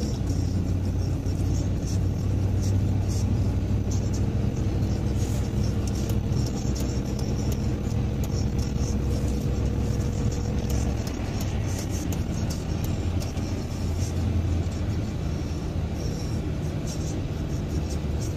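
A car's engine and tyres heard from inside the cabin while driving at speed on a wet expressway: a steady low drone with tyre hiss. The engine note changes about eleven seconds in.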